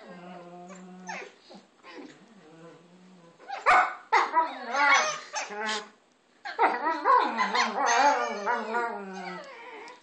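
Two Alaskan Malamutes, an adult and a puppy, playing and 'talking' at each other: howling, woo-ing calls that rise and fall in pitch. Softer at first, then loud from about four seconds in, with a brief pause near six seconds before they start up again.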